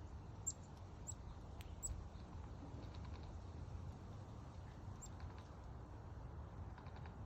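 Black-capped chickadee giving short, high call notes, a few in the first two seconds and one more about five seconds in, over a faint low background rumble.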